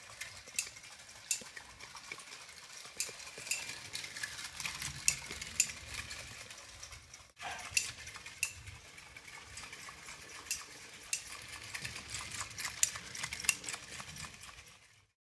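Clockwork motor of a 1930s Lionel Santa Claus hand car running as it rolls around tinplate O-gauge track, with a steady mechanical rattle. The motor-driven bell gives a light metallic ding every half second to second. The sound drops out for a moment about halfway through.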